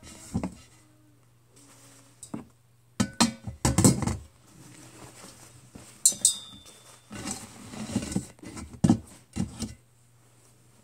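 Plastic-bagged packets and clothes being handled and stuffed into a stainless steel kettle: rustling of plastic and cloth with scattered knocks against the kettle, and one ringing metal clink about six seconds in.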